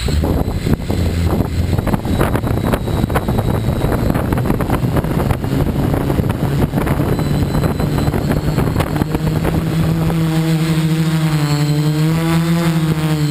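FPV quadcopter's motors and propellers heard from its onboard camera just below the props: they spin up suddenly to a loud, rough, crackly running noise. About ten seconds in, as the quad lifts off, this settles into a steady hum that wavers in pitch with the throttle.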